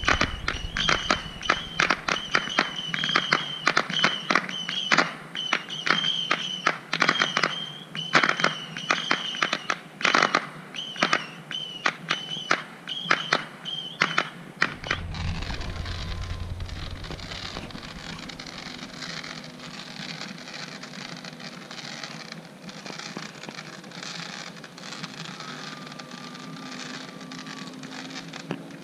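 Fireworks and firecrackers going off: rapid sharp pops and crackles for about the first fifteen seconds, then fewer, scattered pops over a steady hiss.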